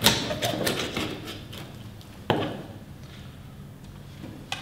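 Large chef's knife chopping through a brill's backbone to take off the head: a quick run of cracks and knocks of the blade against the plastic chopping board in the first second and a half, then a single sharp knock a little after two seconds in.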